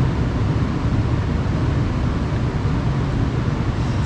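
Steady low rumble of background noise, with no clear pitch or rhythm.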